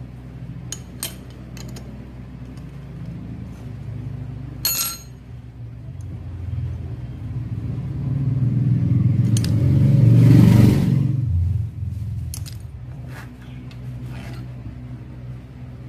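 A motor vehicle passing close by: a low rumble that builds to a loud peak about ten seconds in and then fades. Scattered light metallic clicks and taps from small brass stove jets and fittings being handled and unscrewed run underneath.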